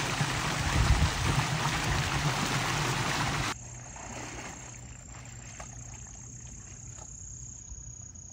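Water gushing and splashing hard over a container, which cuts off abruptly about three and a half seconds in. Then faint water sloshing as a man wades in a shallow creek, under a thin, steady high whine.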